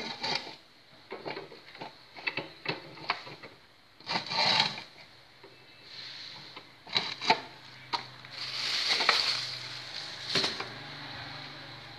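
Handling noise around an aluminium pot and lid: irregular knocks, clicks and scraping rubs. A low steady hum comes in about eight seconds in.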